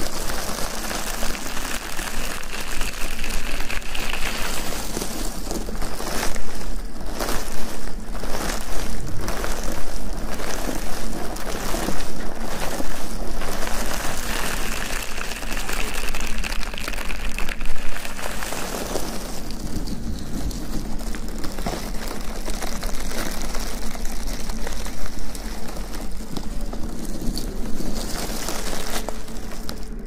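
Close-miked ASMR rustling and rubbing on the microphone: a dense crackling noise like rain, busiest in the first half.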